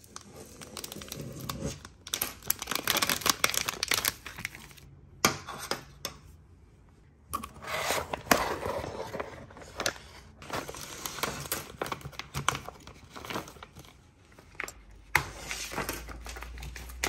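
Plastic packaging crinkling and tearing: a foil parts bag is torn open and clear plastic bags of small parts are handled. The crackling comes in several stretches with brief pauses between them.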